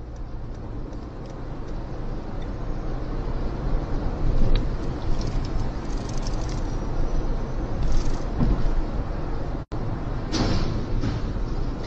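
Road and engine noise of a car driving through a road tunnel, heard from inside the car: a steady rumble that builds over the first few seconds. Near the end the sound drops out for an instant, then comes back with a sharper burst of noise.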